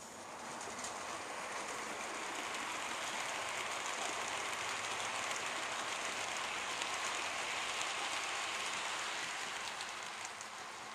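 00 gauge model train running past on the layout: a steady hissing rattle of wheels on the track that swells as it comes close and fades near the end, with a few faint clicks.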